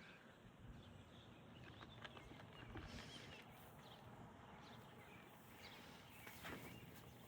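Near silence: faint outdoor ambience with a few soft, brief ticks or rustles.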